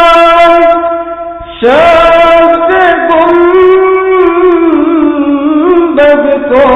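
A naat sung by a single voice in long held notes with wavering turns. The line dies away about a second and a half in, and a new note begins straight after.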